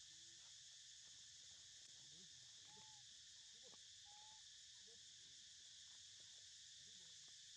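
Faint, steady high-pitched insect chorus, with a few brief faint calls about three and four seconds in.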